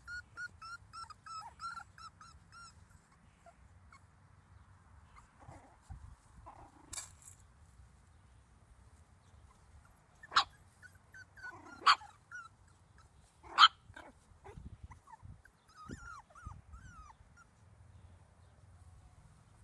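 Yorkshire terrier puppies whimpering, starting with a quick run of short high whines. About halfway through come three sharp yips, the last the loudest, followed by a few more thin whines.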